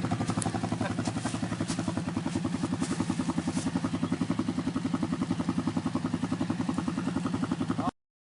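ATV engine idling with a steady, rapid throb, with a few light clicks in the first few seconds; the sound cuts off suddenly near the end.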